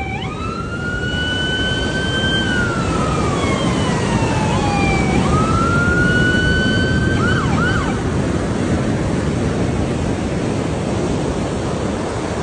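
An emergency-vehicle siren wails in a slow rise and fall twice, then gives a few quick yelps about eight seconds in and stops. Under it runs a steady, loud rush of surf and wind noise.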